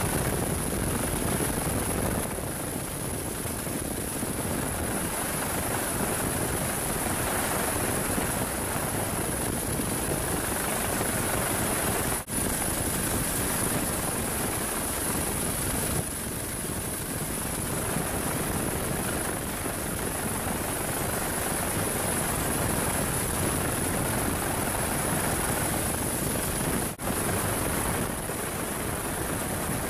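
US Coast Guard MH-65 Dolphin twin-turbine helicopter hovering, heard from aboard: steady rotor and engine noise with a constant high-pitched whine. The sound dips briefly twice.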